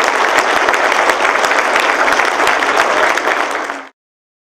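Audience applauding, a dense crackle of many hands clapping, which cuts off suddenly near the end.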